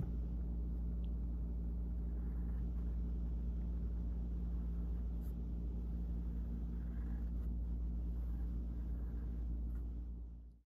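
Pencil scratching faintly on paper while drawing, over a steady low room hum; the sound cuts off abruptly just before the end.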